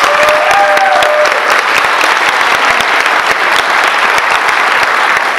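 Audience applauding: dense, steady clapping from many hands, with a short pitched call from one person over it in the first second or so.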